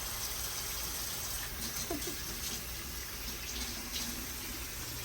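Kitchen tap running into a sink while dishes are washed: a steady splashing hiss with a few faint knocks of dishes.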